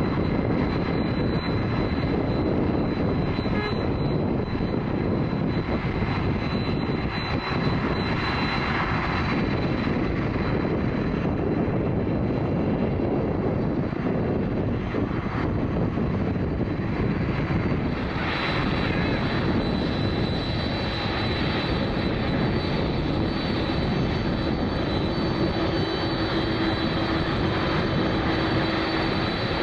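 Boeing 747-400's four turbofan jet engines running as the jumbo jet taxis and turns on the runway: a steady jet rumble with a thin high whine. The sound grows brighter about halfway through, and a lower steady hum joins near the end.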